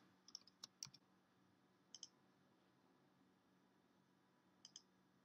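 Near silence broken by a few faint computer keystrokes in the first second, then two faint mouse clicks, each a quick double tick, about two seconds in and again near the end.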